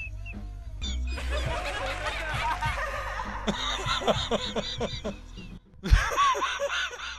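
A man laughing hard in repeated bursts, with music low underneath. The laughter breaks off briefly about five and a half seconds in, then a low thump and more laughter follow.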